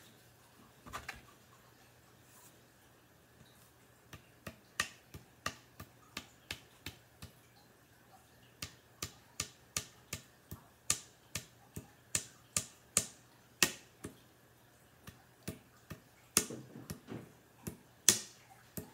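Sharp wooden taps and clicks, two or three a second, as the wooden hilt parts of a cane sword are knocked together during hilt assembly. The loudest knocks come near the end.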